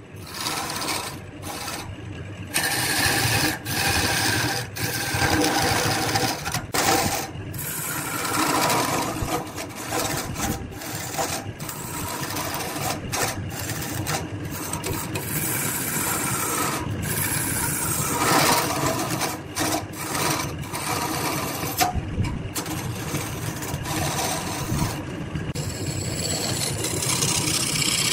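Hand-held turning tool cutting a spinning wooden vase blank on a wood lathe: a continuous rasping scrape of the tool shaving the wood, with the lathe running underneath.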